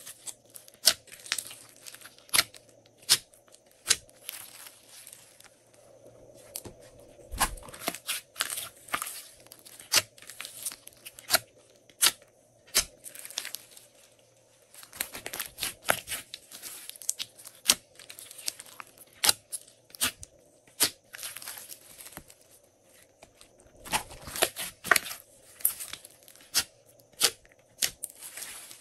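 Glossy slime being squeezed, pressed and stretched by hand: sticky crackling with many sharp popping clicks, coming in irregular clusters with short quiet gaps between them.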